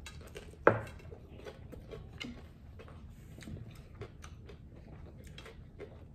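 Close-up chewing and crunching of hard taco shells: many small crackles and clicks, with one sharp knock about a second in.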